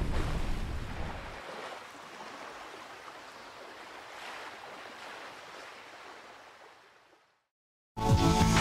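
Watery rushing noise like surf or an underwater ambience, loud at first and fading away over about seven seconds. After a brief silence, a music sting starts abruptly near the end.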